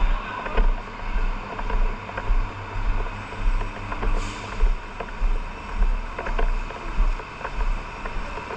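An engine running with a deep throb pulsing about twice a second, with scattered clicks and a short hiss about four seconds in.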